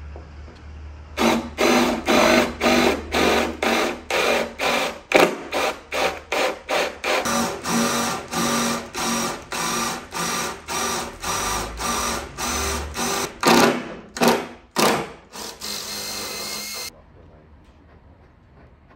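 Electric power drill run in short bursts, about two a second, then held on for a longer run that cuts off sharply near the end.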